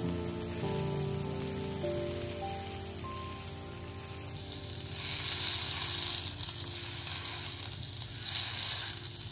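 Samosas deep-frying in hot oil: a steady sizzle that swells about halfway through and again near the end. Soft background music with held notes plays underneath.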